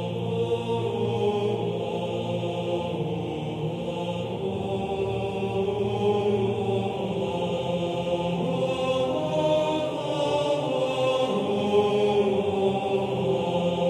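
Background music of slow choral chanting: several voices on long held notes over a low sustained drone.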